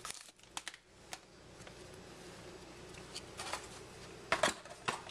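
Trading cards and their packaging being handled: scattered light clicks and rustles as cards are slid out and sorted, with a couple of sharper clicks near the end.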